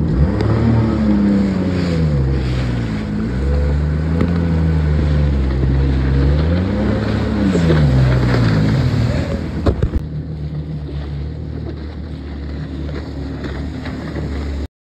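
Jet ski engine running over wind and water spray, its pitch rising and falling again and again as the throttle is worked. About ten seconds in the sound turns lower and steadier, and it cuts off abruptly shortly before the end.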